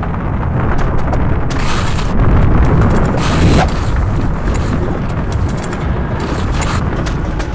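Fire and explosion sound effects: a deep, continuous rumble with three louder bursts, about a second and a half, three seconds and six and a half seconds in.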